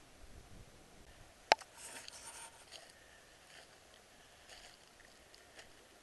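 One sharp snap about a second and a half in, then a brief faint crackling rustle of dry leaves and twigs, over quiet woodland background.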